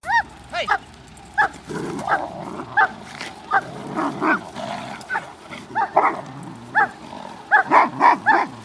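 A protection dog barking repeatedly in short, sharp, high barks, bunched into a rapid run near the end. This is guard barking at a decoy during a guard-duty test.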